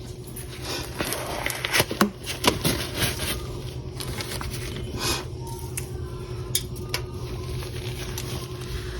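Light handling while seasoning ribs: scattered clicks, taps and soft crinkling, with a few louder scrapes around the first few seconds, over a steady low hum.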